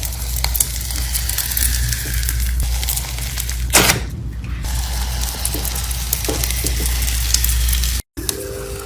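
Slime being pressed and squished by hand close to the microphone, a steady crackling with many small clicks and pops, and one louder crunch about four seconds in. The sound cuts out abruptly just after eight seconds.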